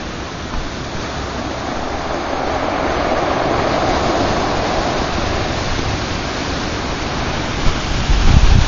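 Steady rushing of sea waves breaking on the shore below, swelling a little around the middle, with wind buffeting the microphone in heavy low bumps near the end.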